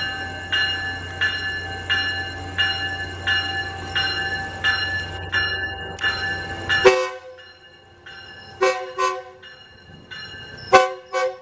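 A bell rings steadily, about once every 0.7 s, over a low steady hum as a Tri-Rail train approaches. About seven seconds in, the train's air horn cuts in with a loud blast, then gives a series of short, quick blasts as a horn show.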